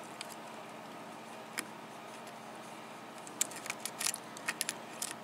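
Lock pick clicking and tapping against the pins inside a Yale 6-pin cylinder lock during single-pin picking. There is one faint click about a second and a half in, then a run of small, quick clicks in the second half.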